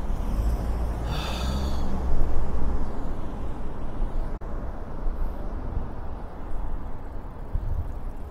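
Night-time city street traffic noise: a steady low hum of road traffic, louder for a moment about two seconds in.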